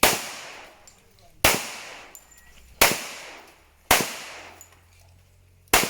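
Para Ordnance .45 ACP pistol fired five times at an uneven pace, one to two seconds apart, each shot trailing off in a long echo.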